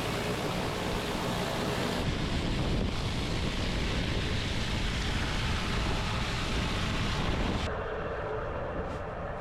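High-pressure water from a pressure washer spraying concrete: a steady rushing hiss over a low rumble. It changes in tone about two seconds in and again near the end.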